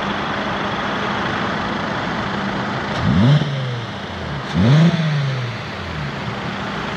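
An idling engine blipped twice, its pitch rising quickly and falling back, about three seconds in and again a second and a half later, over a steady rushing background noise.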